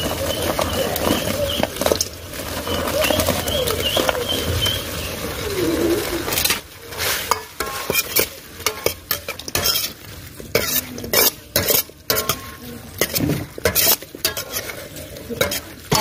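Fried chicken pieces being tipped into a steel kadai of masala and then stirred with a steel ladle: repeated metal-on-metal scrapes and clinks against the pan, thickest in the second half, over a light sizzle of frying.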